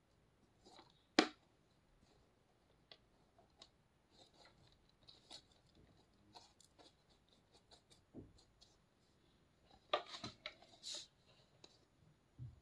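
Faint handling noises of plastic containers: one sharp click about a second in, scattered small taps and scrapes, then a short cluster of clicks and rustles near the end.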